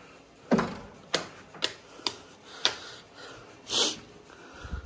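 Footsteps on a hard tiled floor, five sharp steps about two a second, then a short rustle a little under four seconds in.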